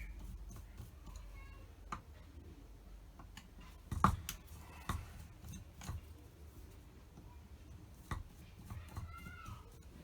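Scattered clicks and light scrapes of tools on metal as the top cover of a Dellorto DRLA 40 sidedraught carburettor is undone, with a louder click about four seconds in.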